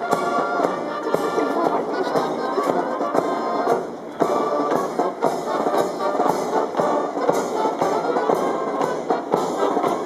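Military band music, a march with a steady beat.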